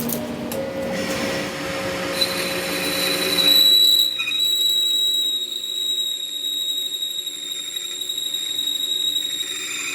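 A machine tool working metal, with a steady high-pitched squeal from about two seconds in over a lower machine hum.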